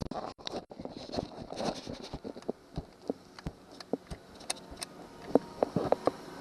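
Irregular clicks, taps and knocks of hand tools and metal parts being handled, with no drill motor running.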